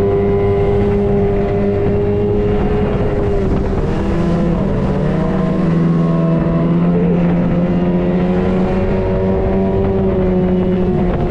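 Small outboard motor on an aluminium jon boat running at full throttle, a steady high engine note that wavers and dips in pitch briefly about midway, with water rushing along the hull.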